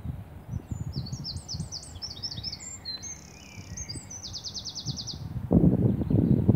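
A songbird singing a quick run of high chirping notes that ends in a rapid, even trill, about half a second to five seconds in. Under it, irregular low rumbling thumps, strongest near the end.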